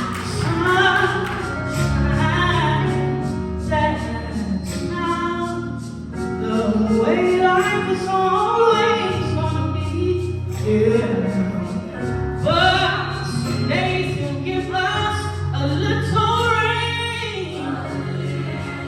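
Gospel singing with instrumental accompaniment and sustained low bass notes.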